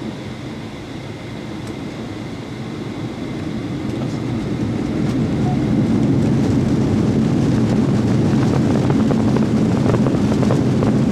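Boeing 737-800 jet engines spooling up to takeoff thrust, heard from inside the cabin: a rumbling roar that grows steadily louder over the first six seconds, then holds, with the cabin rattling as the plane rolls down the runway.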